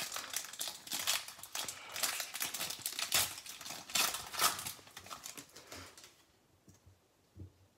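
Foil wrapper of a Panini Playoff football card pack being torn open and crinkled as the cards are pulled out, a dense crackling that dies away about five or six seconds in.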